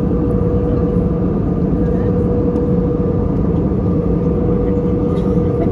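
Airbus A321 cabin noise in cruise: a steady rush of airflow and engine drone with a constant low hum, heard from a window seat inside the cabin.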